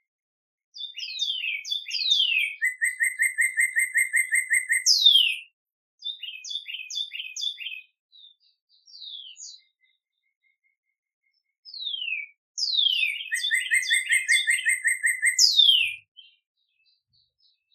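A songbird sings two complex songs about ten seconds apart. Each song opens with quick down-slurred notes, runs into a fast, even trill, and ends with a long downward slur. A few short chirps fall between the songs.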